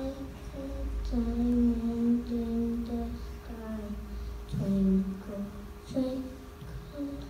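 A young girl singing a slow wordless tune into a handheld microphone: a string of held notes, the longest about a second in, dipping lower after the middle.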